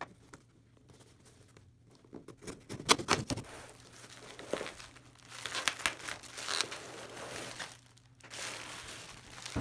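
A cardboard shipping box being torn open, then packing paper and bubble wrap crinkling and rustling as the contents are unwrapped. It starts quiet, with scattered clicks and tearing after about two seconds, and the crinkling grows denser from about four seconds in, with a brief pause near the end.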